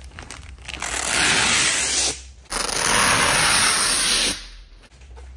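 Protective film being peeled off a tinted rear windshield panel in two long pulls, a loud tearing hiss, the second pull a little longer than the first.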